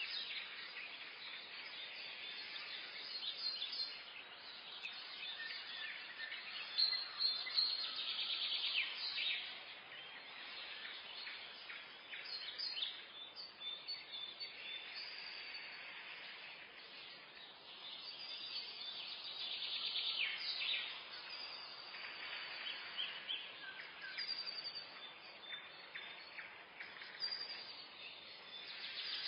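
Morning forest ambience: several songbirds chirping and trilling at once, high-pitched calls overlapping over a faint steady background hiss.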